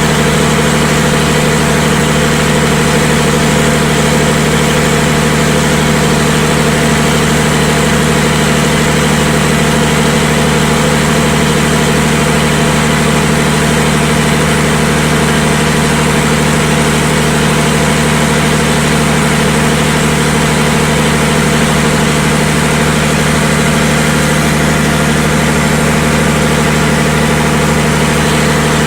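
760 kVA Perkins diesel generator set running at a steady, unchanging speed, loud and even, with a constant low hum.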